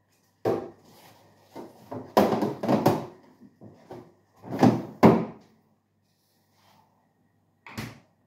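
Plastic food containers and vegetables being set onto refrigerator shelves and into the clear plastic crisper drawer: a series of clunks and rattles. After a quiet few seconds the fridge door shuts with one short knock near the end.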